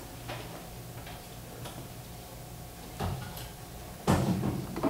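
Quiet room with a steady low hum, a few faint clicks, a knock about three seconds in and a louder knock about four seconds in.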